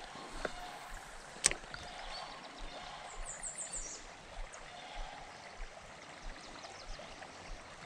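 Creek water running steadily. A single sharp click comes about a second and a half in, and a quick run of high, falling chirps a little after three seconds.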